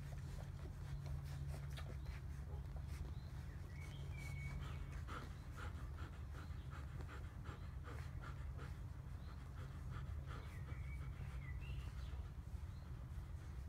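Bernese mountain dog panting, over a steady low rumble, with soft irregular ticks and a few faint bird chirps.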